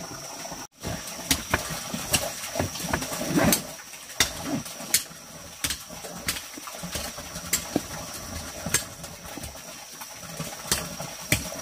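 Irregular sharp knocks and clicks, roughly one a second, over a steady high-pitched whine; the sound cuts out for an instant near the start.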